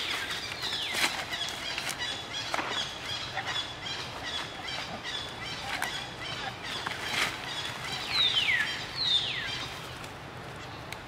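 Young long-tailed macaques squealing as they scuffle, with two loud squeals that fall in pitch near the end, over steady short high chirps.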